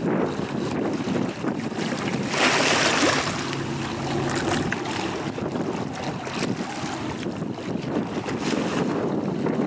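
Fast passenger ferry Queen Star 6 running past at speed: a steady rush of its engines and bow wave through the water, with wind buffeting the microphone. A louder gust of rushing noise comes about two and a half seconds in.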